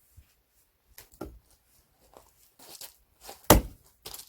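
Axe blow into a log of firewood: one sharp, loud hit about three and a half seconds in, after a few lighter knocks.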